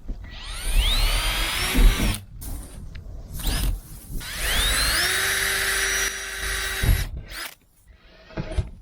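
Power drill boring pilot holes through the van's sheet-metal roof, in two runs of about two seconds each. Each run rises in pitch as the bit spins up and bites, then holds steady, with short rattles in between.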